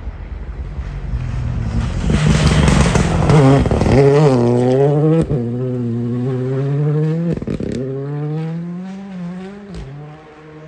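Ford Fiesta rally car approaching at full throttle and passing close, with a rush of tyre and snow noise as it goes by. It then accelerates away through several gear changes, with a few sharp cracks at the shifts, and fades into the distance.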